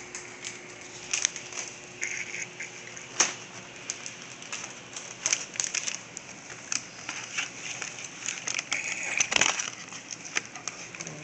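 Crackling and rustling of a cake box and its packaging being opened and handled, with scattered sharp clicks and a soft thump about nine seconds in.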